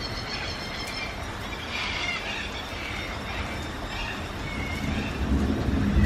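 Steady rain hiss with birds giving several short, harsh calls. A low rumble of thunder swells near the end.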